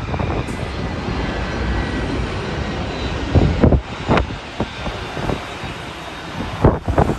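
Jet airliner engines running, a steady rumble with a faint whine, while gusts of wind buffet the microphone, hardest a few seconds in and again near the end.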